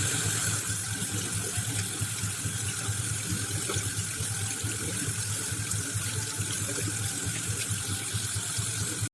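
Tap water running steadily into a sink as a handful of ajwain (Mexican mint) leaves are rinsed under it; the sound cuts off abruptly near the end.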